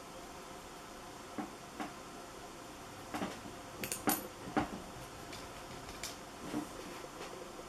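A scatter of light clicks and knocks from small objects being handled, bunched around the middle with the loudest a little past halfway, over a steady hiss.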